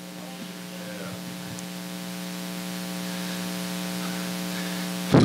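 Steady electrical mains hum with a hiss of static, slowly growing louder.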